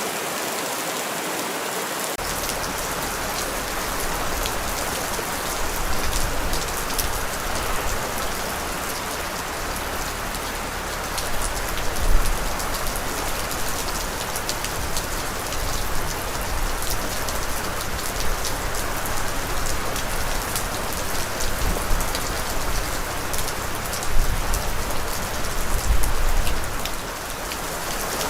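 Steady, heavy rain falling on a surface, a dense hiss with fine crackling drops. Underneath, a low rumble comes in about two seconds in and swells a few times.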